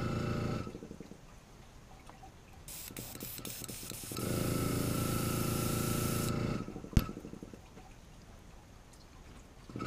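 Airbrush spraying paint in a hissing stream. A small air compressor's motor hums along with it for a couple of seconds, then both cut off together. A single sharp click follows about seven seconds in.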